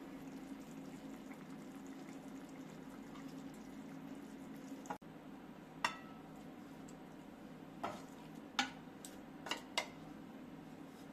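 Kitchen sounds: a steady low hum with a few sharp clinks and knocks of utensils or dishes, about five of them in the second half.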